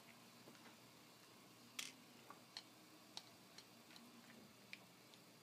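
Faint, scattered small clicks as a precision screwdriver backs small screws out of a plastic Transformers figure's leg and the plastic parts knock against each other, about one or two clicks a second, one a little louder about two seconds in.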